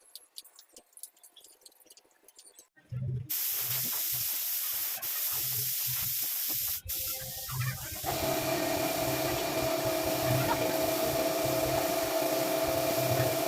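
Compressed-air tool hissing steadily, starting suddenly about three seconds in; about eight seconds in a steady machine hum with a clear tone joins it.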